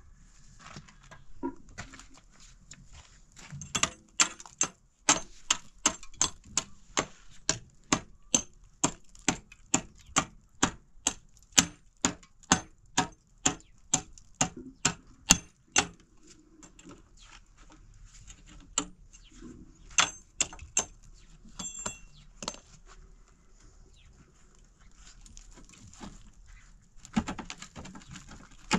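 A steady run of sharp knocks, about two a second for some twelve seconds, then scattered fainter knocks and clicks.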